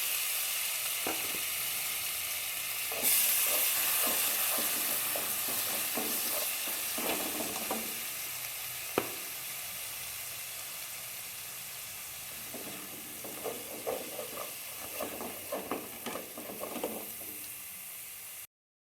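Leftover marinade paste sizzling in butter and oil in a frying pan while a spoon stirs and scrapes it around. The sizzle jumps louder about three seconds in and then slowly dies down, with one sharp tap of the spoon on the pan about halfway.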